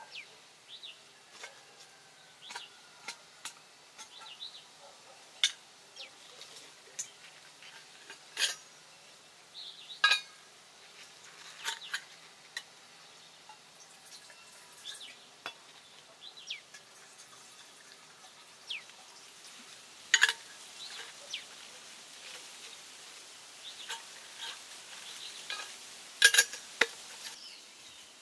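Irregular clinks and taps of metal camp cookware being handled, a tin and a metal mug among them, with a few louder ringing clinks, the loudest two in the second half.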